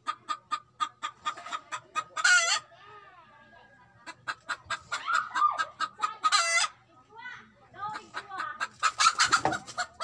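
Domestic hen cackling: runs of rapid clucks that build three times into a long, loud squawk. This is the noisy call she makes when she is about to lay an egg.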